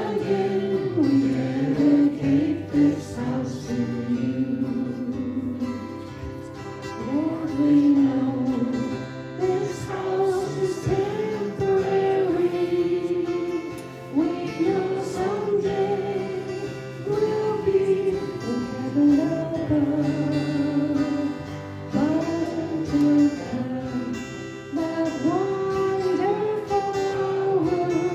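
A worship song sung with acoustic guitar accompaniment.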